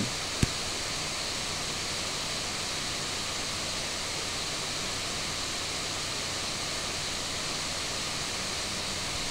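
Steady hiss with a faint low hum, the recording's own background noise, and a single click about half a second in.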